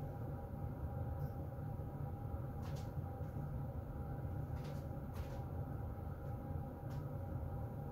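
Heater vent blowing air steadily: an even low rumble with a faint steady hum above it. A few faint ticks come through, about three seconds in and again near five and seven seconds.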